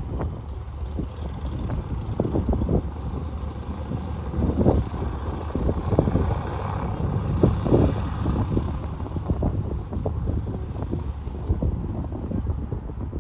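Cessna 182A Skylane's propeller engine running at taxi power as the plane rolls past, growing louder about halfway through as it comes nearest. Gusts of wind buffet the microphone throughout.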